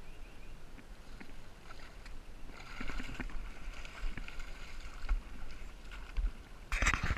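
A hooked largemouth bass being landed from the bank: water splashing and faint ticks, then a loud burst of clattering dry sticks near the end as the fish is swung onto a brush pile.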